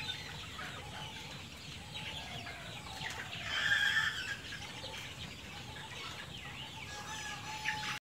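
A flock of chickens clucking and calling, with one louder call about three and a half seconds in. The sound cuts off suddenly near the end.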